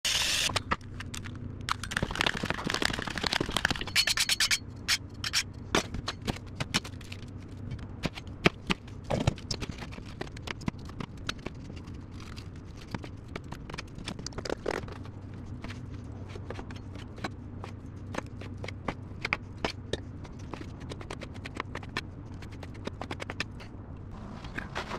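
Kitchen food-prep sounds: a pepper grinder grinding for the first four seconds or so, then a knife tapping and scraping on a cutting board as a bell pepper is sliced, many short sharp clicks over a low steady hum.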